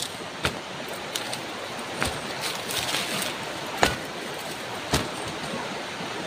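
Several sharp clacks of river stones being set down against one another along the edge of a plastic tarp, the loudest nearly four seconds in, over a steady rush of flowing water.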